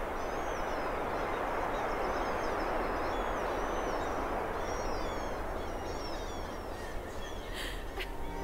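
Outdoor ambience: a steady noise bed with small birds chirping high above it, and a couple of short clicks near the end.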